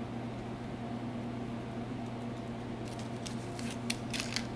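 Metal cuticle pusher scraping softened gel polish off a fingernail: a quick cluster of short, crisp scrapes and clicks about three seconds in, over a steady low hum.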